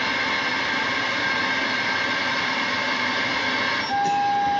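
CB radio receiver static: a steady hissing rush with faint whining tones in it. About four seconds in the noise changes as another signal comes on, bringing a steady high whistle.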